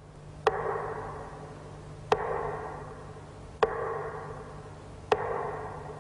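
Slow, evenly spaced percussive strikes, four of them about a second and a half apart, each trailing off in a short ring, over a low steady hum.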